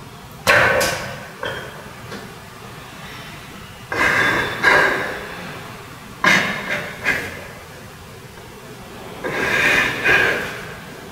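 A man crying in loud, ragged sobs, four bouts a few seconds apart, each starting suddenly.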